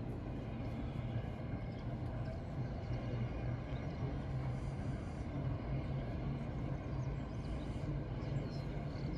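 Steady low rumble of a vehicle, with a constant low hum.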